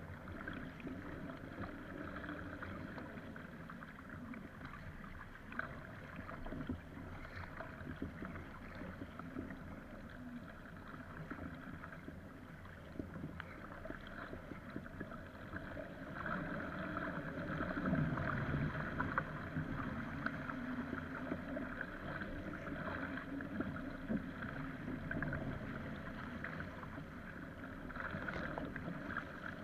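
Water rushing and splashing along a surfski's hull as it is paddled through choppy waves, with paddle blades dipping and spray slapping close by. It grows a little louder about two-thirds of the way through.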